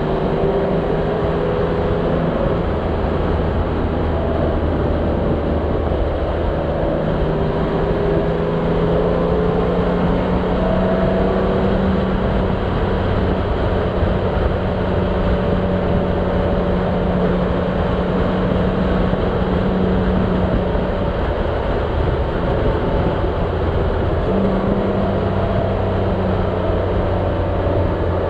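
A motorcycle engine running steadily at road speed under strong wind rush, its note stepping up or down a few times as the rider changes speed.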